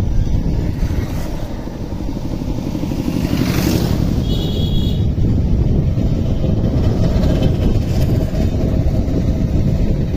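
Motorcycle riding along a road at steady speed, its engine and road rumble heard from on the bike.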